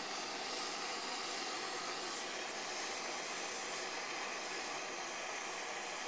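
MSR PocketRocket canister stove burning turned up high, its gas flame giving a steady, even hiss.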